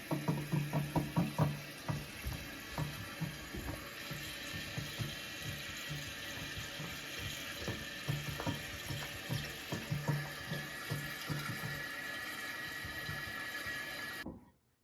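Water running as a toilet refills after the water supply is turned back on, a steady rush with an irregular low pulsing through it. It cuts off suddenly near the end.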